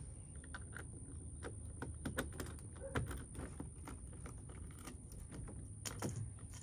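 Scattered small clicks and taps as a key is worked in the lock of a hard-shell rooftop tent and its strap buckle latch is handled.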